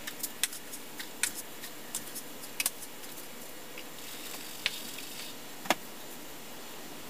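Scattered light clicks and knocks from a wooden foundry sand riddle being handled over a molding flask, with a faint rustle of green sand in the middle. One sharper wooden knock comes a little before the end as the riddle is set down.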